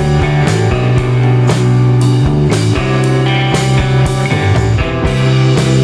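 Background music with a steady drum beat, guitar and bass.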